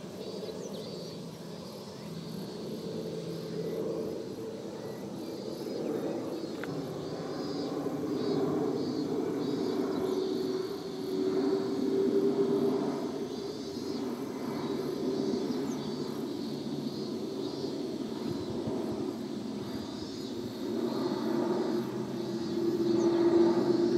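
Jet engine noise from a Boeing 777 airliner passing high overhead: a steady hum that swells and fades, growing loudest near the end. Insects buzz in a high, steady layer behind it.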